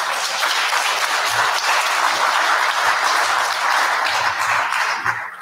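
Audience applauding at the end of a talk, a steady patter of many hands that fades out near the end.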